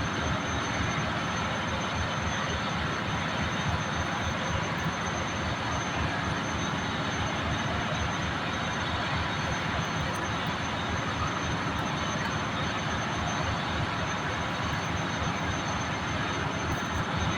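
Ship's engine-room machinery noise: a steady, loud drone of running engines and ventilation with a thin high whine, unchanging throughout.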